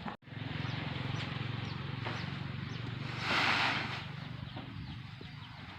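An engine running steadily with a low hum under a hiss, swelling into a louder rush of noise about three seconds in, with short high chirps over it.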